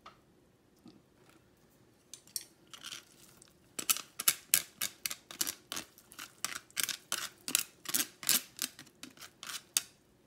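A kitchen utensil clicking against a bowl in quick, even strokes, about three a second, as something is stirred or beaten in it. A few faint clicks come first; the strokes turn loud about four seconds in and stop near the end.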